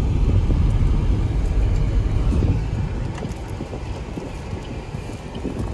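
Low road and engine rumble of a moving car, heard from inside the cabin. It is louder for the first couple of seconds, then eases off.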